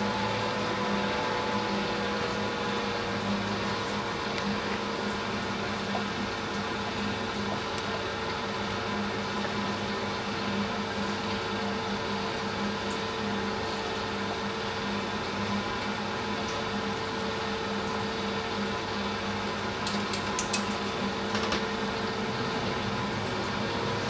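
Gas furnace draft inducer blower running steadily after spinning up, during the start-up sequence before the burner lights. A few sharp clicks come about twenty seconds in.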